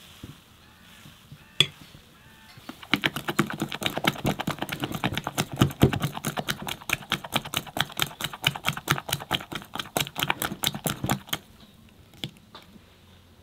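A spoon beating batter by hand in a glass bowl: quick, even clicks of the spoon striking the glass, about five a second. They start about three seconds in and stop about two seconds before the end.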